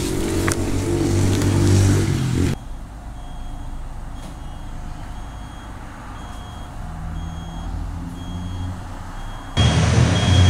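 Motorcycle engine idling with a steady low hum, which cuts off abruptly about two and a half seconds in. A high electronic beep then repeats at about one and a half beeps a second over a quieter background. The engine hum returns suddenly near the end.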